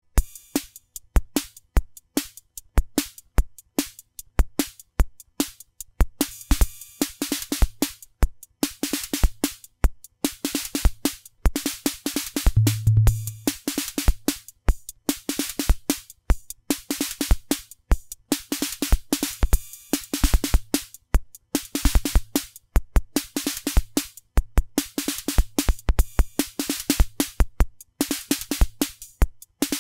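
Analog drum machine, the BOSS DR-110, playing a steady beat of bass drum and snare-type hits. Hissing hi-hat and cymbal strokes ride over it, the cymbals ringing out in longer noisy decays every second or two. A low boom sounds about 13 seconds in.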